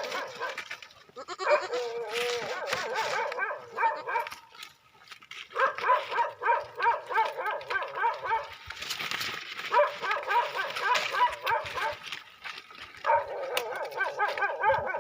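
Goats bleating: four long, quavering bleats, with short pauses between them.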